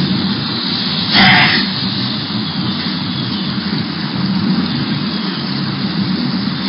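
A pet coughing: one short, harsh hack about a second in, and another just starting at the very end, over a steady loud rushing noise.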